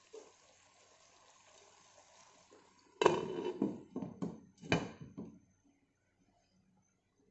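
A glass pot lid is set down onto a metal cooking pot: a sudden loud clatter about three seconds in, then several more clinks against the rim over the next two seconds, each ringing briefly. Before it there is only a faint steady hiss.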